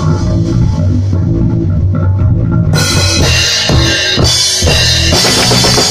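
Rock band rehearsal: a drum kit with kick and tom hits under low sustained notes from a bass or guitar. The cymbals drop out for the first part and then come crashing back in a little under halfway through.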